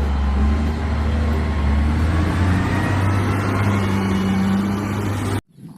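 Heavy vehicle engine running steadily with a low hum, cutting off abruptly about five and a half seconds in.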